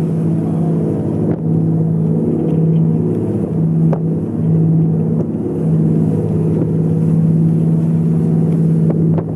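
Boat engine running with a steady low drone, dipping briefly a few times, with a few faint clicks.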